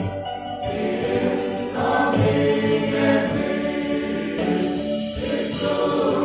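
Mixed choir of men's and women's voices singing a Christmas carol together in harmony, with sustained notes.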